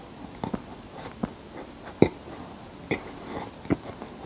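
Close-miked chewing of sticky, sesame-coated honey bread (kkulppang): irregular wet mouth clicks and smacks, the loudest about two seconds in.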